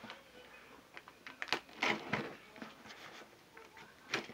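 A utility knife cutting the tape on a cardboard shipping box, with scattered short scrapes, clicks and taps of blade and cardboard as the box is handled.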